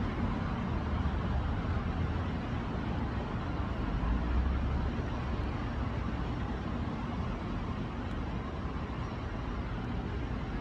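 Steady outdoor background noise, mostly a low rumble, swelling briefly about halfway through.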